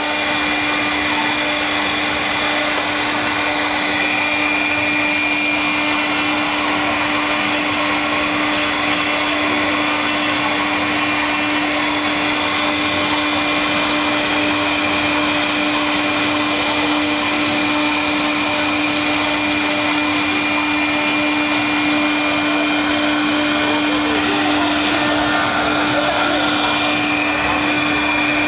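CNC wood router running steadily, its spindle motor giving a constant whine over a broad hiss.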